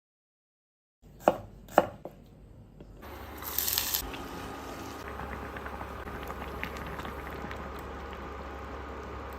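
Cooking sounds: two sharp knocks of a knife chopping on a cutting board a little over a second in, then a short loud hiss and a steady hiss with small crackles.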